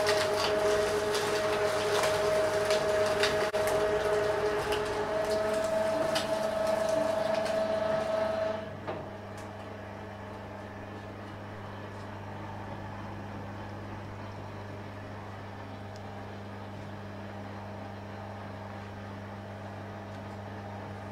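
A 2 hp electric sugarcane juice machine crushing a bundle of cane between its three stainless steel rollers: loud grinding with a steady whine and crackling clicks from the stalks. About eight and a half seconds in, the cane has passed through and the crushing stops, leaving the motor and gearbox running empty with a steady low hum.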